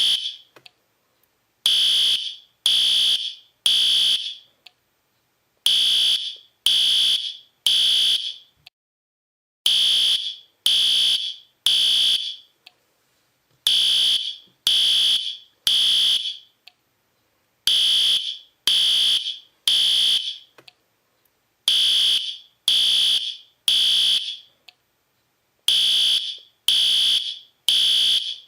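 Fire alarm sounding the temporal-three evacuation signal: groups of three shrill beeps, each about half a second long, followed by a pause of about a second and a half, the cycle repeating every four seconds.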